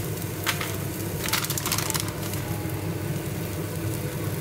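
Egg, diced ham and mushrooms sizzling in a non-stick frying pan, with a few short crackles about half a second and one and a half to two seconds in.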